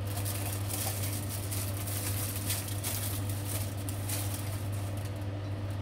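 Coconut-milk stew of cauliflower and corn simmering in a glass-lidded pot, with a patter of small bubbling pops under the lid over a steady low hum.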